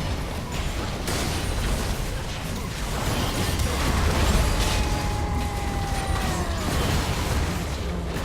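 Heavy breathing close to the microphone, with a low rumble and crackle throughout. A thin whistling tone holds for about two seconds near the middle and dips at its end.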